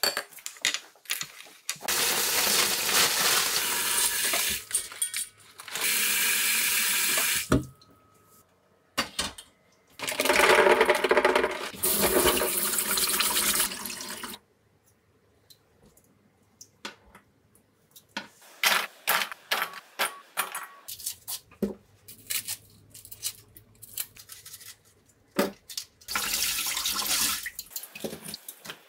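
Kitchen tap running into a stainless steel sink and bowl while food is rinsed by hand, in three stretches of several seconds each. Between them come scattered light clicks and knocks of handling at the sink.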